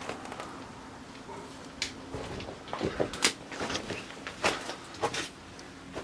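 Twigs and branches snapping and rustling as someone pushes through dense undergrowth on foot. After a quieter start there are several sharp cracks, from about two seconds in to near the end.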